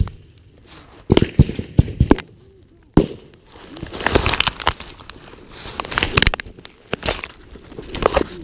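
Rustling, crackling and knocking from a body-worn camera rubbing and bumping against clothing and brush, in several bouts with sharp cracks.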